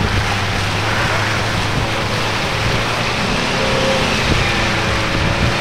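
Jeep Cherokee engine running steadily under load as the off-roader churns through a deep mud rut, its tyres throwing up mud.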